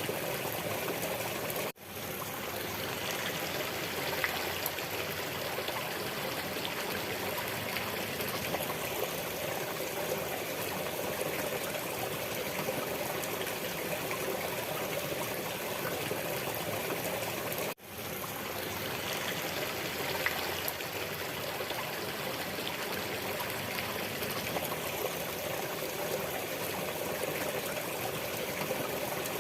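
Water of a stream trickling and flowing steadily. It cuts out abruptly twice, about 16 seconds apart, and fades back in each time, as at the seam of a looped recording.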